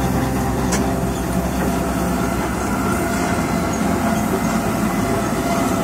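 Steam traction engine running as it drives past, its exhaust chuffing in a steady rhythm.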